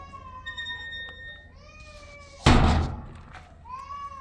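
An animal's high-pitched calls, repeated several times with sliding pitch, and a single loud thump about two and a half seconds in.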